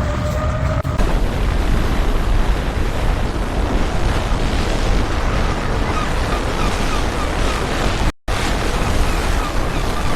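Loud, steady rush of churning water with wind buffeting the microphone, broken by a brief dropout about eight seconds in. For the first second, a rising siren wail is heard before it cuts off.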